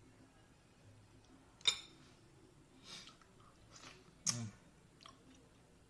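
A person eating and chewing food with the mouth close to the microphone: a handful of short wet smacks and clicks spread through an otherwise quiet stretch, one with a brief low grunt.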